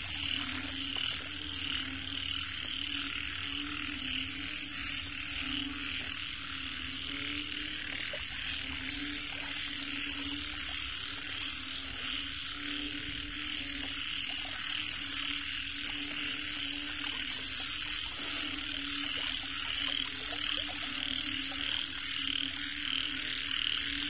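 Chorus of frogs calling at night, a low pulsing croaking that goes on steadily, with a steady higher trill above it.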